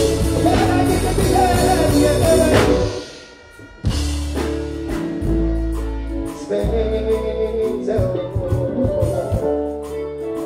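Live stage show music: a singer's voice over loud backing music with a deep bass, through a stage sound system. About three seconds in, the music drops out for roughly a second, then comes back in.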